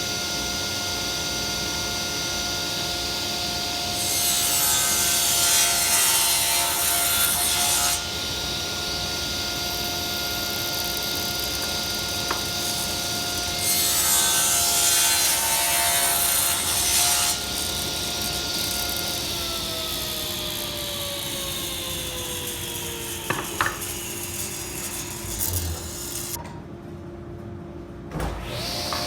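Table saw running with a steady whine and ripping wood twice, each cut lasting about four seconds, as facets are cut along a board's edge. Past the middle the saw is switched off and its whine falls in pitch as the blade coasts down.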